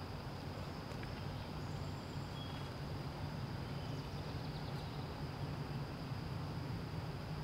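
Outdoor ambience of steady insect song, a thin high drone, over a constant low rumble, with a few faint bird chirps.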